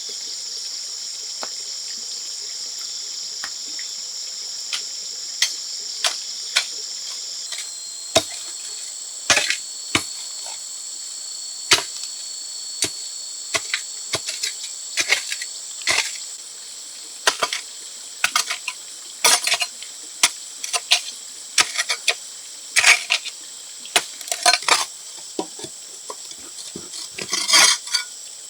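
A steady, high-pitched insect chorus of crickets or cicadas, its tone shifting about a quarter of the way in. Over it come irregular sharp knocks and taps, sparse at first and more frequent in the second half.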